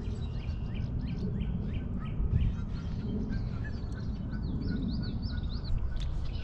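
Wild birds calling: a string of short, down-slurred chirps in the first few seconds, then a quick run of higher warbled notes about four to five seconds in, over a steady low rumble.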